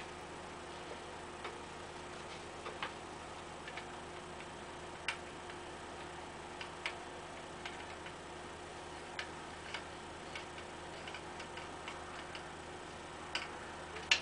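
Light, irregularly spaced clicks and taps over a steady faint hum.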